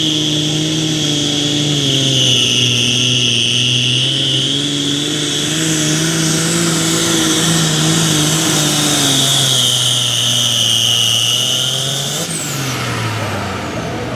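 Hot farm pulling tractor's turbocharged diesel engine running hard under load down the track, with a loud high turbo whistle over the engine note. About twelve seconds in the throttle comes off: the whistle stops, spooling down, and the engine note drops.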